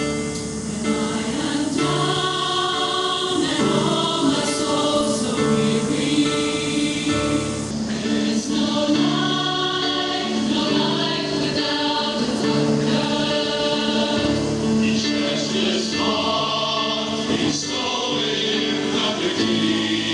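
A choir singing slowly in long held chords that change every second or two.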